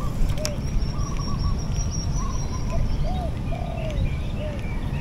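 Birds calling outdoors: a series of short arching calls, with wavering higher notes and a thin high steady whistle for about two seconds in the first half. A steady low rumble lies underneath.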